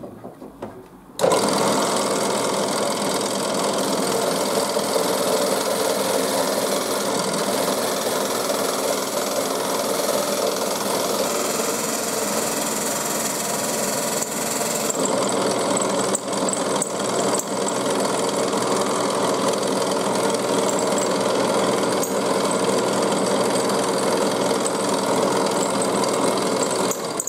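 Bench drill press switched on about a second in, its motor spinning a homemade stepped sanding spindle steadily, with a piece of wood pressed against the sanding sleeves; it stops at the end.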